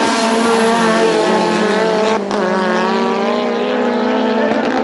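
Two street cars' engines held at high revs as they launch hard off a drag strip start line and accelerate away side by side, with a short break in the sound about two seconds in.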